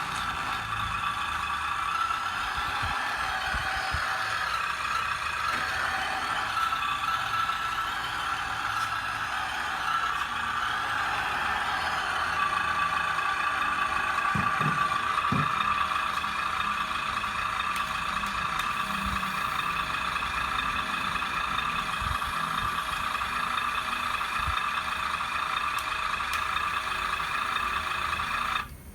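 A 1/12-scale radio-controlled 6×6 Cougar MRAP model truck running steadily, then cutting off suddenly near the end.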